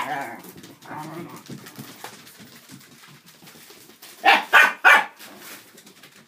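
Dachshund barking: three quick, sharp barks in a row about four seconds in.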